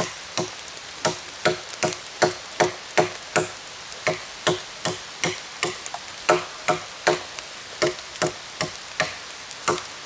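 Solognac Sika 130 Grip bushcraft knife chopping into a branch about 5–6 cm thick, a steady run of sharp wooden strikes about two or three a second as the blade bites in and throws off chips.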